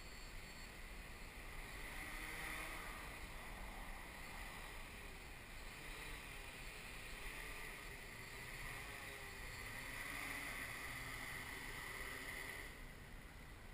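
Electric motors and coaxial propellers of an XAircraft X650V X8 octocopter whirring in a hover, the pitch and loudness swelling and easing as the throttle is worked up and down. The whir drops away near the end as it comes down to land.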